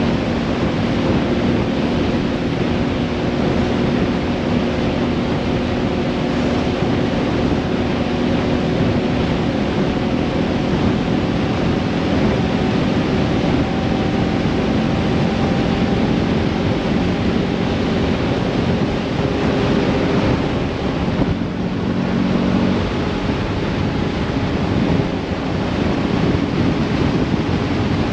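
A car driving along an open road: a steady engine hum under a rush of road and wind noise, with wind buffeting the microphone.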